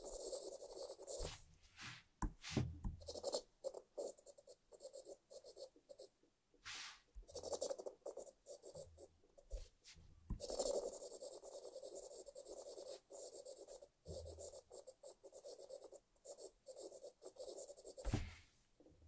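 Samsung S Pen stylus nib scratching and tapping across the Galaxy Tab S9 Ultra's glass screen while drawing and colouring in. Longer strokes alternate with runs of quick short strokes and dabs.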